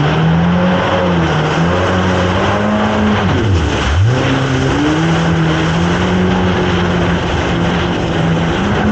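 Jet ski engine running hard, its pitch rising and falling with the throttle through the turns, dropping sharply about three and a half seconds in and climbing straight back. A steady rush of water spray runs underneath.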